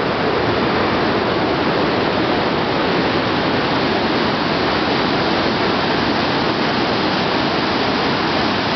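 Water pouring through the open spillway gates of Cherokee Dam: a loud, steady, unbroken rush of falling water.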